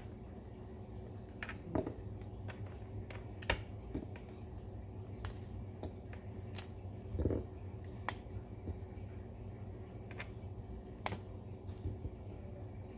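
Scattered sharp clicks and light taps of a red plastic apple slicer being handled and apple slices being pulled from its blades and set down on a cutting board, with one duller thump about seven seconds in. A steady low hum runs underneath.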